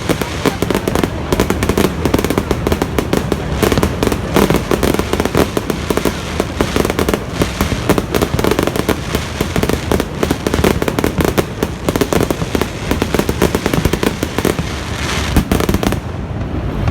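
Aerial fireworks going off in quick succession, a dense run of bangs and crackling over a steady low rumble, thinning out in the highest sounds just before the end.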